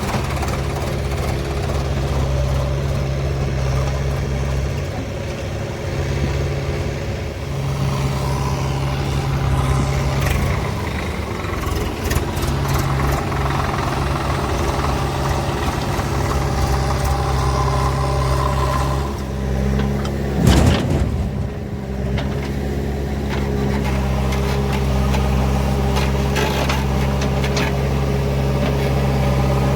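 Heavy diesel machine engine, a tractor or backhoe, running steadily at an even speed. A short, loud burst of noise cuts across it about two-thirds of the way through.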